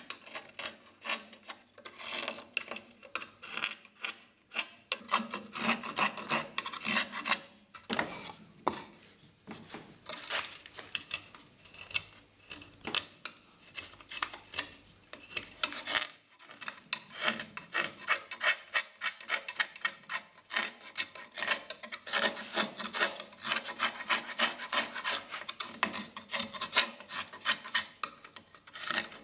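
Narrow-bladed Japanese carving knife (kuri kogatana) paring shavings from a wooden cup's handle: a rapid run of short, dry scraping cuts, with a couple of brief pauses.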